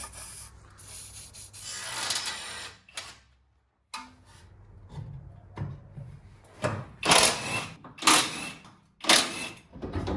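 Hand tools working on metal as the coilover's mounting bolts are undone: a long rasp about two seconds in, then four or five short, loud rasping strokes in the second half.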